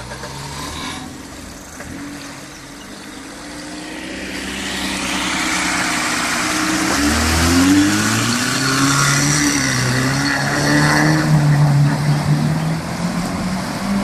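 Niva 4x4's engine revving, its pitch rising and falling under load as it drives through a ford. From about four seconds in, a growing rush of splashing water joins it and stays loud.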